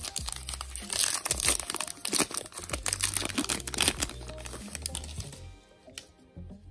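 A Topps Heritage baseball card pack's wrapper being torn open and crinkled as the cards are pulled out, with quick irregular crackles that die down about five and a half seconds in. Background music plays underneath.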